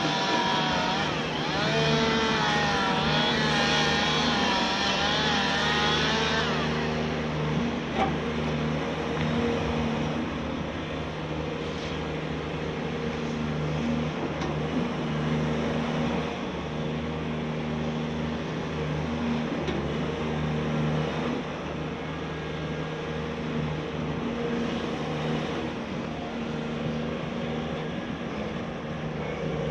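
Caterpillar excavator running steadily, its diesel engine and hydraulics giving a constant low drone. A high, wavering squeal rides over it for the first six seconds or so, then stops. A single sharp click comes about eight seconds in.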